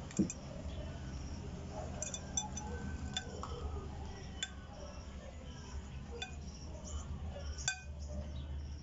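Wooden pestle pounding and mashing cooked cassava in a glass bowl, with a spoon clinking against the glass several times. There is a dull thump just after the start, over a steady low hum.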